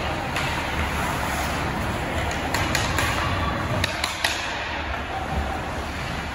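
Ice hockey game in an arena: steady rink noise with a cluster of sharp clacks of sticks and puck a little before the middle.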